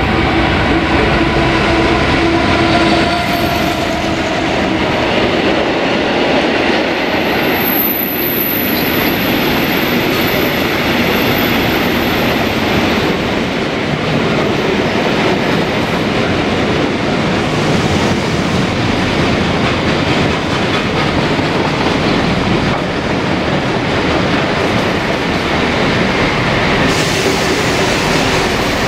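A train running past at close range: a loud, steady rumble of wheels on the rails and running gear. A steady hum fades out about three seconds in.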